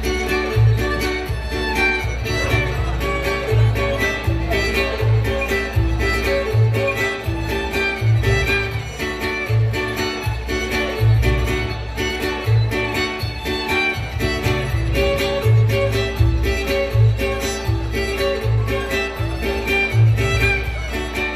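Instrumental string-band music: a violin carries the tune over guitar and repeating low bass notes, with a steady beat.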